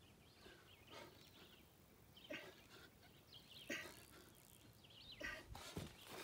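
Near silence: faint outdoor ambience with a few faint, distant bird chirps and several soft, brief noises spread through it.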